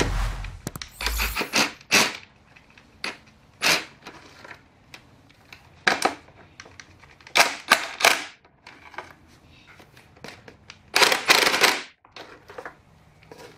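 Plastic cover of a Craftsman pancake air compressor being handled and fitted onto the unit: irregular sharp clicks and knocks, with a longer scraping rattle about eleven seconds in.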